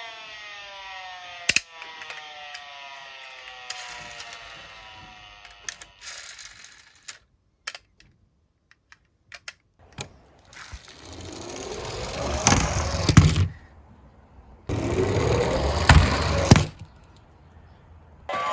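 A toy police car's siren winding down, falling in pitch and fading over the first several seconds, with small plastic clicks of the toys being handled. Then toy cars rolling down a slope in two runs, a loud rumbling rattle of about three seconds and another of about two.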